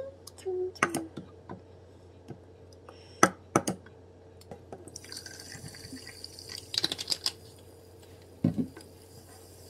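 A wooden spoon taps and knocks against a plastic cup and a glass jar as thick grapefruit syrup is scooped in. About halfway through, carbonated water is added and a steady fizzing hiss begins, with a few more clicks and a thump near the end.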